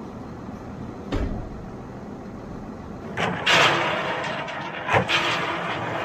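Feed pellets poured from plastic buckets into a metal feed bunk, a loud rushing rattle starting about three seconds in and a second pour about five seconds in. A dull thump comes about a second in.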